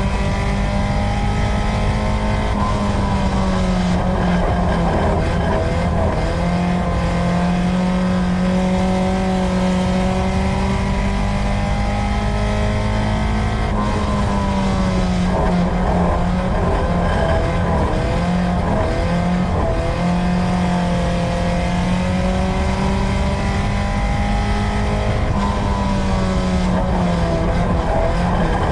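Dirt-track race car's engine heard from inside the car at racing speed. The engine note drops and climbs back three times as the driver lifts off and gets back on the throttle through the corners, over steady road and tyre noise.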